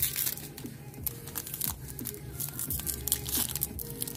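Foil wrapper of a Topps Chrome trading-card pack crinkling in irregular bursts as it is handled and opened, with cards handled between the fingers.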